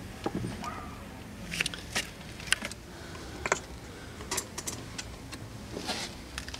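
Irregular sharp crackles and clicks from kindling being lit with a small burning stick, with the wood being handled, over a low steady background.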